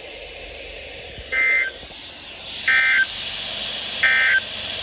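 Three short bursts of NOAA Weather Radio SAME digital data tones, about 1.4 seconds apart, over a steady hiss: the end-of-message code that closes the flash flood warning.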